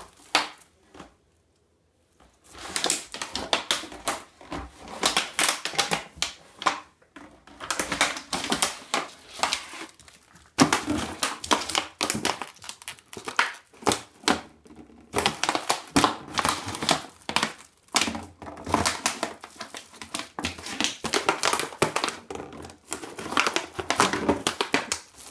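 Thin plastic 2-litre PET bottle crinkling and clattering in irregular crackly bursts as a Shiba Inu bites and noses it across a wooden floor, with a short pause about a second in.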